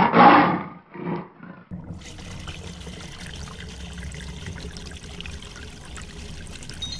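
A short, loud animal cry at the start, then water pouring steadily from a watering can onto the ground.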